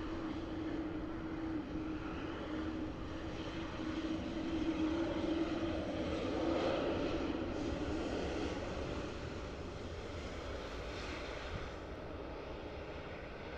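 Jet engines of a departing Boeing 787-8 at takeoff thrust, swelling to a peak about halfway through and then fading as the aircraft moves away.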